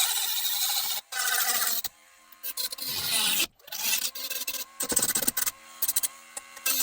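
Handheld abrasive power tool working on the Beetle door's steel and body filler. A steady whine cuts off about a second in; after a short further run it comes in short, uneven scraping bursts.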